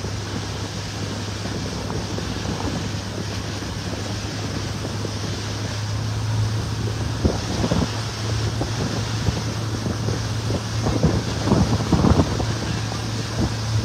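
Wind buffeting the microphone over the steady low drone of a boat's motor, with water rushing past. The buffeting comes in sharper, more frequent gusts in the second half.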